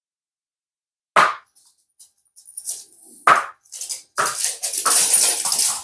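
A small rubber ball thrown for a dog knocks on a laminate floor, twice a couple of seconds apart, with small ticks between. Then about a second and a half of dense, rapid rattling skitter on the floor.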